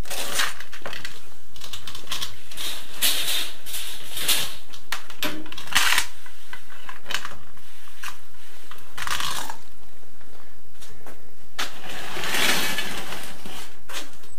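A hand brush sweeping broken plaster and concrete rubble onto a shovel across a concrete floor: irregular gritty scraping strokes with small stones rattling.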